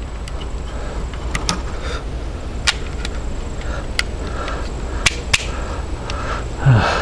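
Metallic clicks of 9mm steel-case cartridges being pressed into a 20-round Hi-Point 995 carbine magazine as the last round is loaded: about half a dozen short, sharp clicks spread over several seconds, over a low steady rumble.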